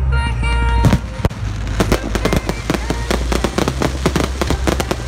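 Aerial fireworks display: a loud bang about a second in, then a dense, uneven run of sharp cracks and pops from bursting shells.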